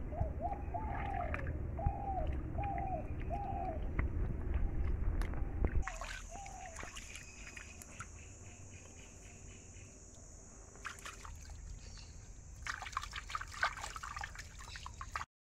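Shallow stream water trickling, with a bird giving five short repeated calls in the first few seconds. From about six seconds the water is quieter under a steady high whine, and near the end there is splashing as a bottle is swished and rinsed in the stream. The sound cuts off just before the end.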